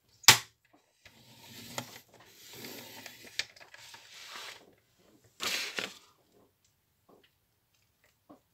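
Paper being scored on a scoring board: a sharp click a moment in, then a scoring stylus scraping along the board's groove through the cardstock for about three and a half seconds, and a shorter scrape a little later.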